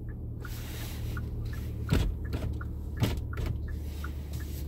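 Steady low hum inside a car cabin, with two dull thumps about two and three seconds in and faint, evenly spaced ticking.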